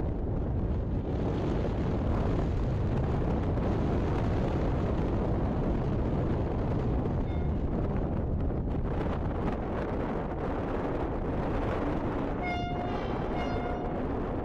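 Wind buffeting the microphone over a low, steady rumble from a distant ONCF electric passenger train running past. Near the end there are two short horn toots about a second apart.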